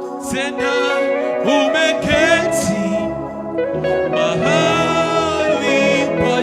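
Worship music: a voice singing long, wavering notes over sustained keyboard chords.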